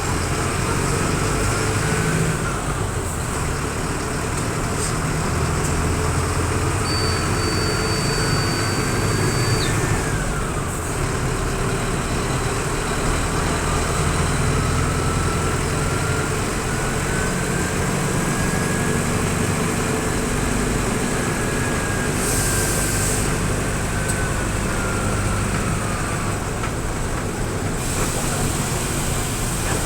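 Mercedes-Benz OF-1722M city bus under way, its diesel engine running with a thin whistle that rises and then drops off three times, the last rise long and slow. A brief high steady tone sounds around a third of the way in, and a short hiss comes near the end.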